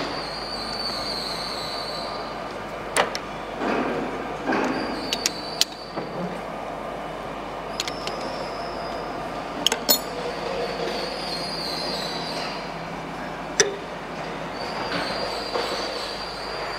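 A three-jaw lathe chuck being tightened with a T-handle chuck key, clamping a threaded stud: a high squeak in short spells of a second or two, about five times, as the key is turned, with sharp metallic clinks of the key in between.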